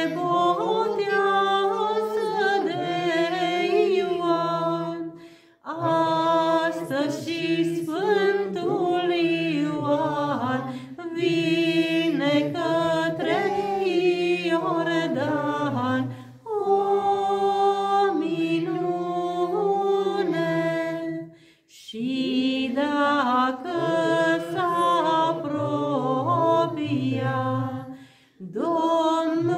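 A woman singing a Romanian Orthodox Epiphany (Boboteaza) song unaccompanied into a microphone, in sung phrases of a few seconds with short breaths between.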